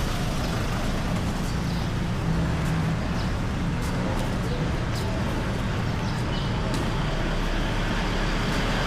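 Steady road traffic noise of a city street, a low, even rumble of passing vehicles with a few faint clicks.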